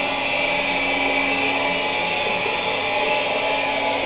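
Electric water pump motor running steadily, a constant hum and whine while it pumps water.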